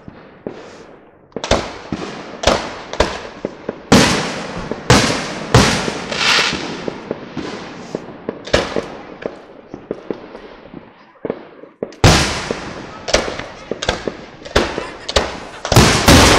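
Aerial fireworks shells bursting overhead in quick succession, each sharp bang trailing off in a rolling echo. The bangs briefly let up about two-thirds of the way through, then a new volley starts.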